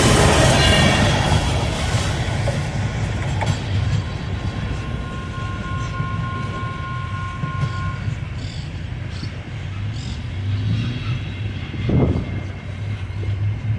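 Freight train of empty mining hopper wagons rolling past on the rails, loud at first and then fading to a steady low rumble as it moves away. A faint steady squeal is heard for a few seconds in the middle.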